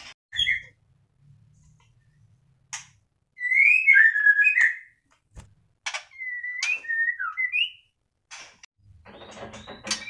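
White-rumped shama singing: a few short whistled phrases of gliding notes, the loudest about three and a half to five seconds in, with sharp clicks between the phrases.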